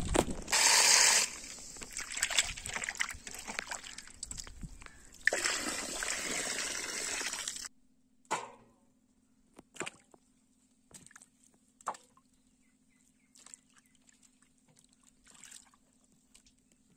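Water splashing and sloshing as chicken pieces are rinsed and rubbed by hand in a stainless steel plate, loudest about a second in. The sound cuts off suddenly after about eight seconds, leaving only occasional small drips and splashes in a steel basin of water.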